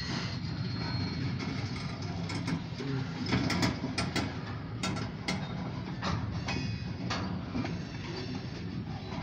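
Freight train rolling slowly through the yard: a steady low rumble with irregular clicks and knocks.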